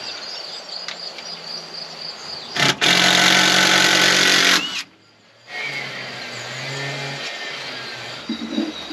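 A small motor, likely a power tool, runs loudly for about two seconds and cuts off abruptly, followed by a quieter low hum.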